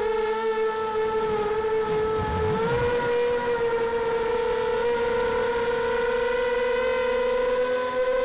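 Quadcopter's electric motors and propellers whining steadily, heard from the camera on board. The pitch rises a little about three seconds in as the motors speed up, just after a brief low rumble.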